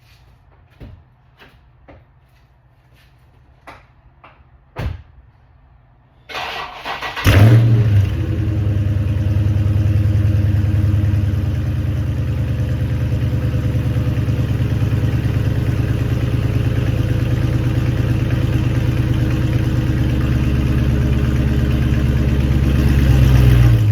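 Dodge Charger Scat Pack's 6.4-litre 392 HEMI V8 starting: a few light clicks and a thump, about a second of cranking, then it catches with a loud flare in revs and settles into a steady, loud idle with a rapid even pulse. The idle cuts off suddenly near the end.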